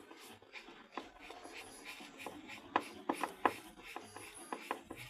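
A screwdriver tightening the screws that hold a new washing machine gearbox in place: irregular scraping and small clicks, with a few sharper clicks about three seconds in.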